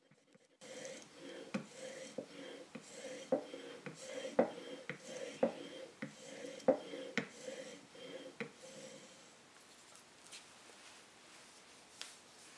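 A 1930s Stanley plane iron, clamped in a Veritas Mark II honing guide, being stroked back and forth on oiled 12-micron honing film over a granite surface plate: a steady rubbing with a light knock at each stroke, about two a second, stopping about nine seconds in. A faint click near the end.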